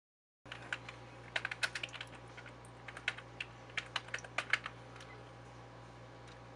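Typing on a computer keyboard: irregular key clicks starting about half a second in and stopping near the end, over a low steady hum.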